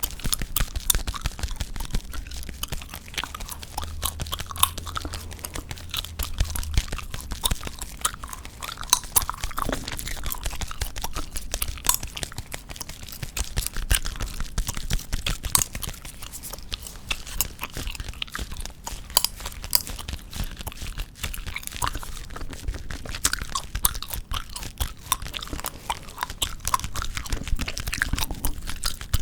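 Gum chewed close to the microphone: a steady, dense run of wet clicks and smacks.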